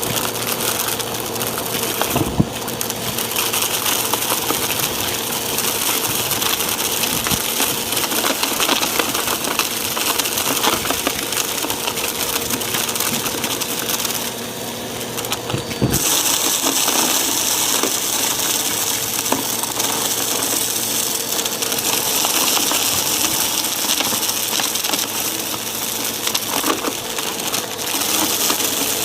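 Bissell CleanView upright vacuum running steadily over carpet, with a constant motor hum and whine while crunchy debris crackles and rattles up through it. The hiss drops briefly about halfway through, then comes back brighter.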